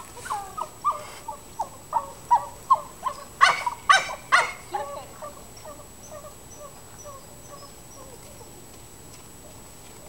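A dog whining and yipping in a quick run of short, high, falling calls, about two or three a second, with a few louder sharp barks about halfway through. The calls fade out after about five seconds.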